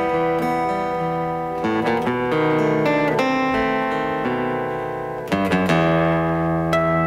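Acoustic guitar playing a tango instrumental: picked notes ringing over changing chords, with a few sharp strummed chords, the strongest about five and a half seconds in.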